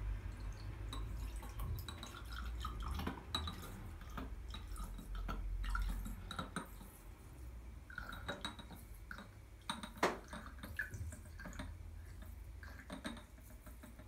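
Dark vinegar poured slowly from a bottle into a small glass, trickling and dripping faintly, with a few small clicks.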